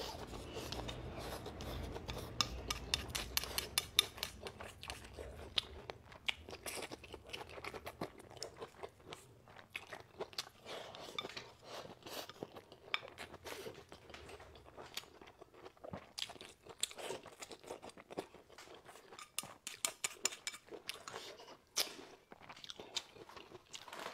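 A person eating close to a clip-on microphone: slurping and chewing, with many quick wet clicks and crunches.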